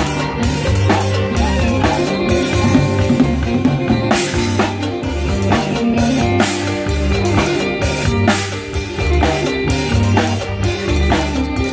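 Drum kit playing an upbeat Isan phin-style groove with bass drum and snare, alongside a phin lute and bass line.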